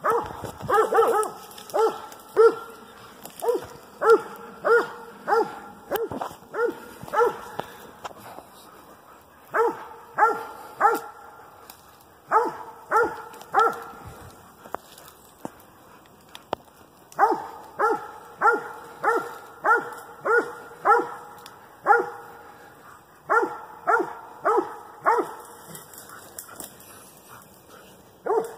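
Hog dog barking steadily at bay, runs of loud, evenly spaced barks, about two a second, broken by short pauses: the dog is holding a cornered boar hog in the thicket.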